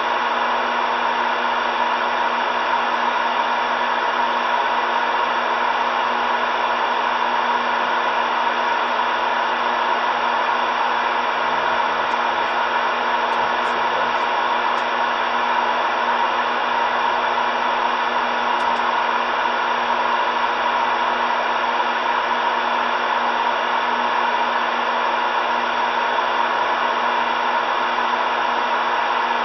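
Steady static hiss from a CB radio's speaker, tuned to 27.375 MHz (channel 37) with no station talking, carrying a faint steady hum under the rush.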